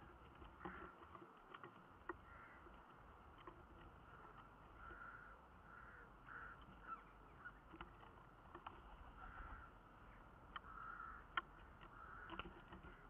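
Faint ticks and rustles of nest sticks and down as Eurasian hobby falcon chicks shuffle and stretch their wings in the nest, a dozen or so scattered ticks with the sharpest about two-thirds of the way through, over a low steady hum.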